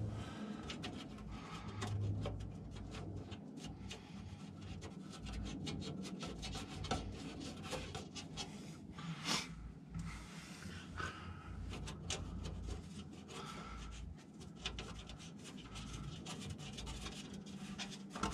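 Old plastic blower-fan shrouds of an Onan 10 kW Quiet Diesel generator being worked by hand into the sheet-metal fan housing: scattered scrapes, rubs and small clicks of plastic on metal, with one sharper click about nine seconds in.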